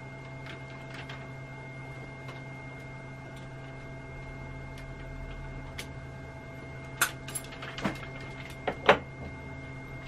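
A steady hum, then a handful of sharp metallic clicks and clinks from about seven to nine seconds in, as ER collets and tooling are handled during a collet change on a milling machine.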